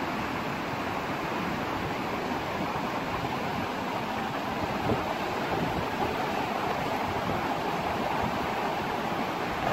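Fast-flowing stream rushing steadily, a little louder near the end.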